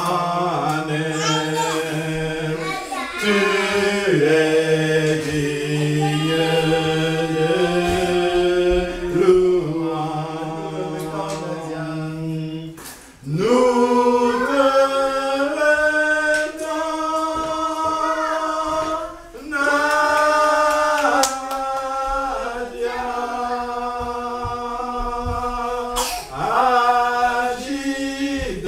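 A small group of voices singing a worship song a cappella in long, held notes, with no instruments. The singing dips briefly about thirteen seconds in, then resumes with a voice sliding up into the next phrase.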